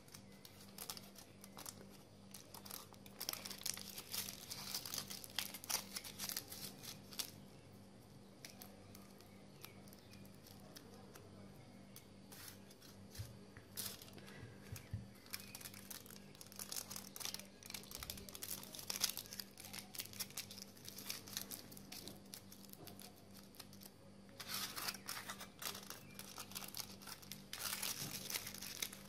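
Aluminium foil crinkling and crackling as it is folded and pinched around fingertips. It comes in several bursts a few seconds long with quieter stretches between, and the busiest burst is near the end.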